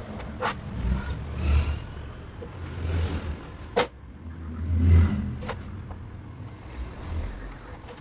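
Uneven low rumbling noise that swells and fades, loudest about five seconds in, with a few sharp clicks or taps spaced one to three seconds apart.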